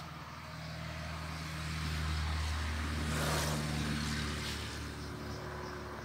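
A motor vehicle's engine running with a steady low hum, growing louder to a peak a little past halfway through and then easing off, like a vehicle passing by.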